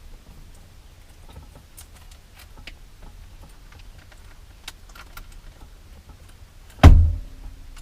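Light scattered clicks and small rattles of parts and tools being handled, then one sharp loud knock about seven seconds in.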